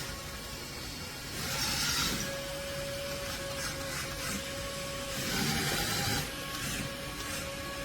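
Small electric motor of a remote-control wall-climbing gecko toy whirring steadily with a thin whine. The whir swells louder twice, about a second and a half in and again about five seconds in.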